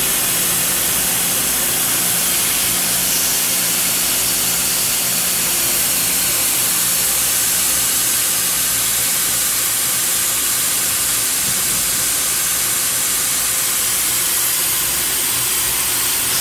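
Steady machine-shop noise: a loud, even hiss with a low mechanical hum underneath, unchanging throughout.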